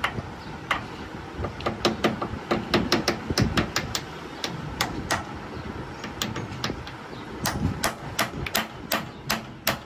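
Hammer tapping on the end of a steel CV joint shaft held in a lathe chuck: sharp metallic taps in irregular clusters, several a second, with pauses between them.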